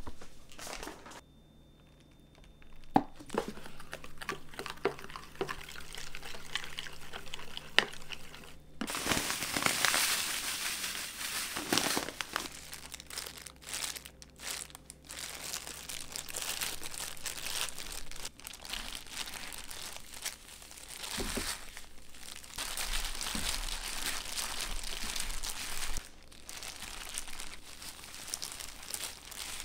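Crinkling of plastic and rustling of dry panko breadcrumbs as gloved hands coat gimbap rolls in batter and crumbs, with scattered small taps and clicks.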